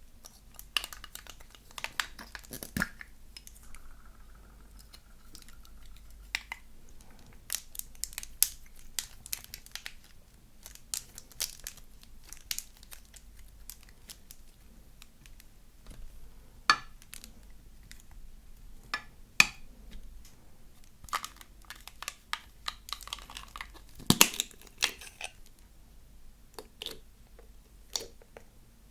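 Slime being kneaded and stretched by hand: sticky crackling with irregular sharp pops as air pockets burst.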